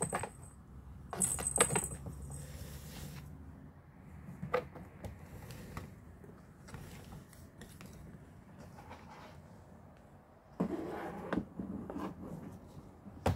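A cat playing with a feather wand toy on a cardboard scratcher: scattered light clicks and scrapes, a short metallic jingle about a second and a half in, and a stretch of rustling near the end.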